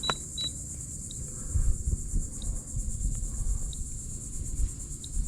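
Steady high-pitched buzz of insects, a cricket or cicada chorus, with a few short high ticks and a low rumble underneath.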